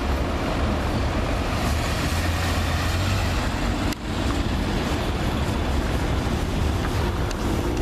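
Mercedes E63 AMG's V8 running at low revs, a steady deep rumble as the car rolls slowly past, with a brief break about four seconds in.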